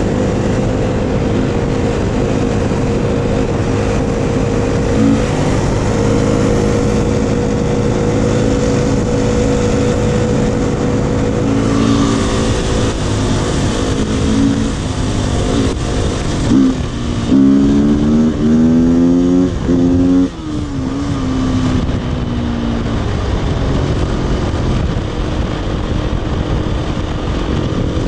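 Four-stroke dirt bike engine running steadily at cruising speed, heard from on the bike. A little over halfway through the revs climb and fall several times and get louder, then drop off suddenly before it settles back into a steady cruise.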